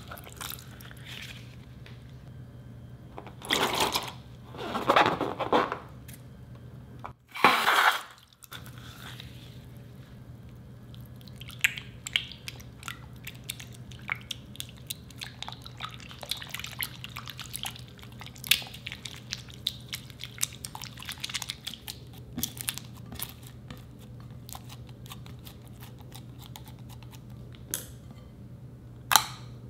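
Water squirting in a few loud gushes from a cut rubber balloon into a glass bowl of white slime mixture. Then a silicone spatula stirs the thickening slime, with a long run of small, sticky, wet clicks and crackles and a few louder pops near the end.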